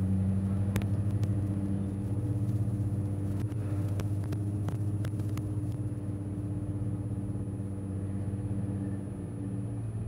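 Nissan GT-R's twin-turbo V6 running at a steady low-rev cruise, a low even drone, with a few faint clicks scattered through the first half.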